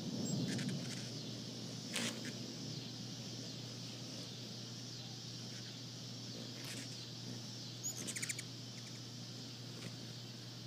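Hummingbirds chipping as they chase each other: a sharp high chip about two seconds in and a quick rattle of high chips around eight seconds in, over a steady high hiss and a low hum.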